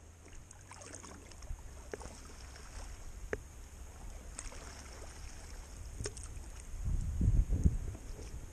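Plastic sit-on-top kayak on calm river water: soft water sounds against the hull with scattered light drips and taps, over a low rumble that swells near the end.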